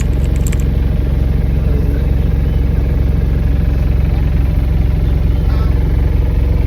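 Maxi taxi minibus engine running with a steady, loud low drone.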